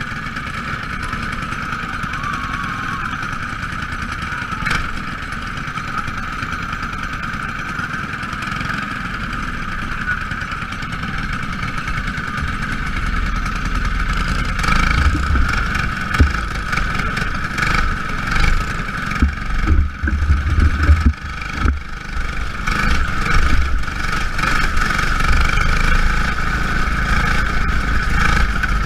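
Small racing engines running together on the track in a steady drone. The sound grows louder and rougher about halfway through, with uneven swells as cars pass close.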